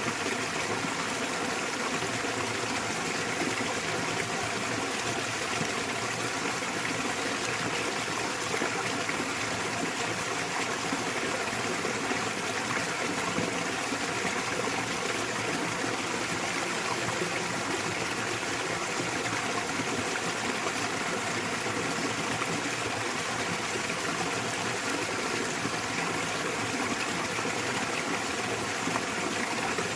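Small waterfall splashing steadily into a mountain stream, an even rushing of water that does not change.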